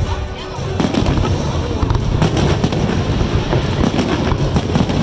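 Aerial fireworks exploding in rapid succession: many sharp bangs over a continuous low rumble, a little sparser in the first second.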